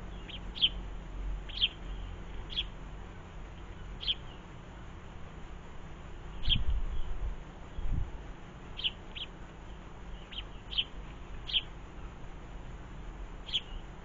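Small garden songbirds giving short single chirps, about a dozen spaced irregularly, with two brief low rumbles near the middle.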